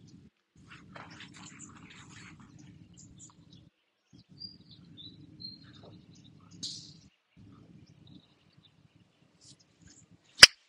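A single sharp crack of a 60-degree wedge striking a golf ball on a pitch shot, near the end and by far the loudest sound. Before it, birds chirp faintly.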